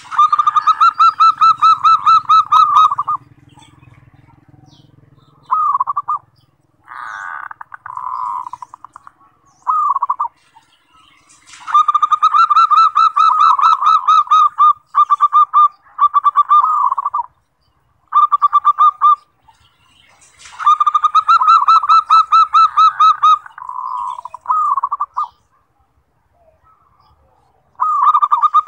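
Zebra dove (perkutut) cooing: a series of fast, rolling trilled coo phrases, some short and some running two to four seconds, with short gaps between them. This is a 'masteran' master song of the kind played to train caged perkutut to sing.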